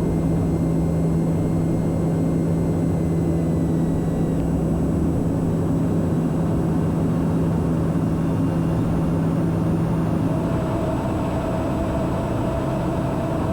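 Cockpit noise of a Socata TBM 910 turboprop in flight: the turbine engine and propeller make a steady drone. A strong steady hum runs under it and stops about ten seconds in.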